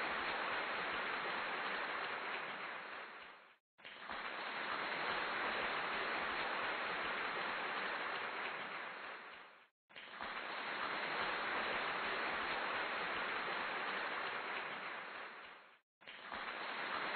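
Steady, even hiss like rain or static, with no tones or rhythm. It runs in stretches about six seconds long, each fading out into a brief dropout of silence before starting again, three times.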